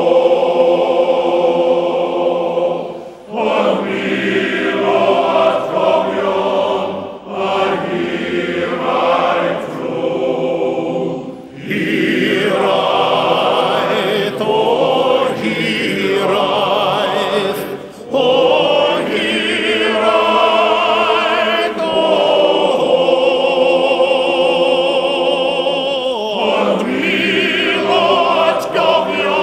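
Male voice choir singing a slow Welsh song in long held phrases with vibrato, with short breaths between phrases every few seconds; a solo male voice sings along with the choir.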